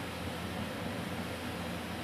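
Steady, even hiss with a faint low hum beneath it, and no distinct knocks or clicks.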